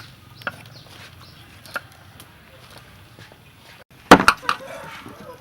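Knife chopping on a wooden cutting board: a couple of light knocks, then a quick run of three or four hard chops about four seconds in.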